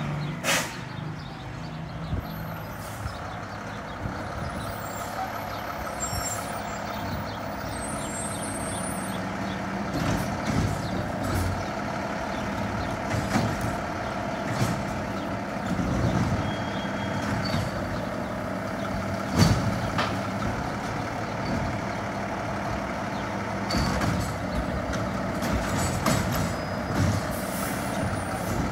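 Mack LEU garbage truck with a Bridgeport Ranger automated side loader, its engine running steadily at low speed. Sharp knocks and hisses cut in every few seconds, the loudest about two-thirds of the way through.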